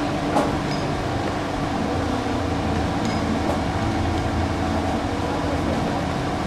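Steady low mechanical hum of a running motor, with one faint click about half a second in.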